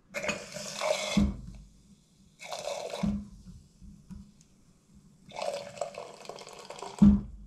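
Cherry hard cider pouring from a stainless keg beer tap into a glass in three hissing, foamy spurts, each ending in a low knock, the loudest knock near the end. The cider is over-carbonated.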